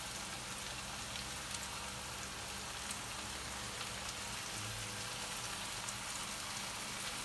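Onions sizzling in hot olive oil in a frying pan as chopped sarmaşık shoots are dropped in, a steady hiss with small scattered crackles.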